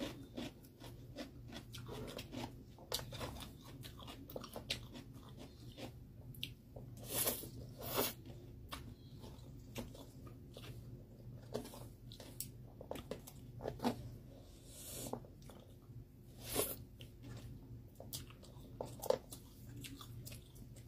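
Close-miked eating sounds: a person chewing and crunching food, with many short sharp clicks and a few longer noisy bursts.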